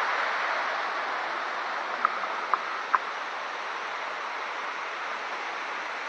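The Little Miami River rushing through Clifton Gorge below: a steady rush of water that eases a little after the first second. About two seconds in come three short, sharp ticks in quick succession, the loudest sounds here.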